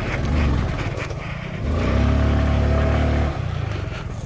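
Honda Grom's small single-cylinder engine revving under throttle as the bike is ridden off-road: a short burst near the start, then a longer pull of about a second and a half in the middle before the revs drop back.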